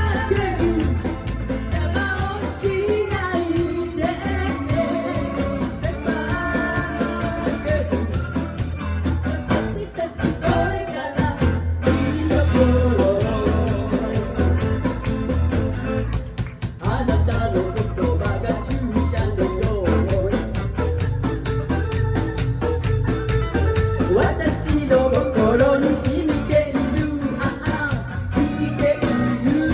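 Live band playing a song with a singing voice over a steady beat.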